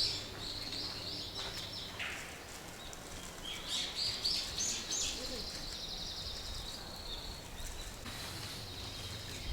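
A small bird singing rapid chirping phrases in two bouts, the second starting about three and a half seconds in, over faint steady outdoor background noise.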